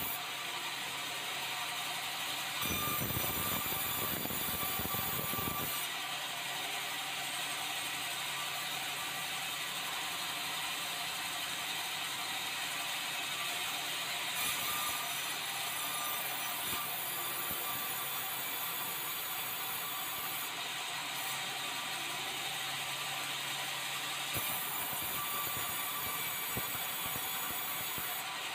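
Sawmill band saw running steadily and cutting red meranti boards as they are fed along the roller table past the blade, a continuous mechanical noise that grows louder and deeper for about three seconds near the start.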